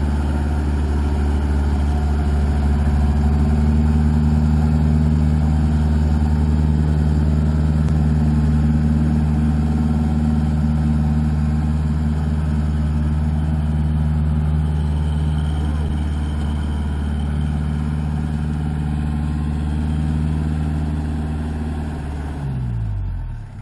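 Kubota backhoe's diesel engine running steadily at high revs, then revs falling away sharply near the end.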